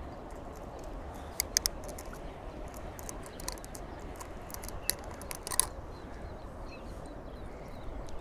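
A few sharp clicks as a fishing lure's hooks are worked loose from a northern pike's mouth, a pair about a second and a half in and more around five seconds in, over a steady low background rumble.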